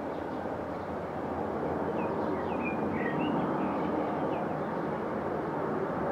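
Twin-engine widebody jet airliner on final approach with its landing gear down, its engines making a steady rumbling roar that grows slowly louder as it nears. A bird chirps a few times about two to three seconds in.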